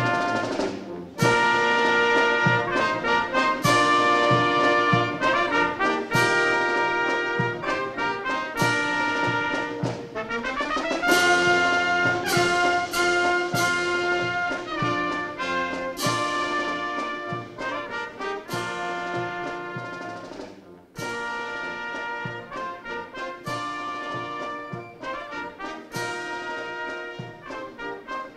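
Brass band playing a military song, with trumpets and trombones carrying the melody. There is a brief drop about two-thirds of the way through before the next phrase comes in.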